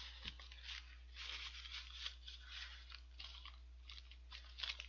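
Paper burger wrappers crinkling as they are crumpled and folded by hand: faint, irregular crackles.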